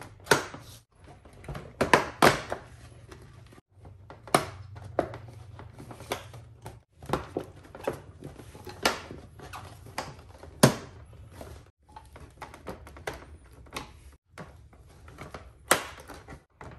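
Plastic fog light bracket being pushed and pried into a car's front bumper cover: irregular sharp clicks and knocks of plastic, with a few brief silent gaps.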